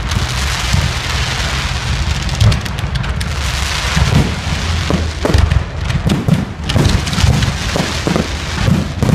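Fireworks display: a dense crackling at first, then a rapid run of loud bangs from about four seconds in.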